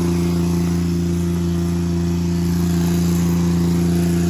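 An engine running steadily at an even, unchanging pitch, a constant drone.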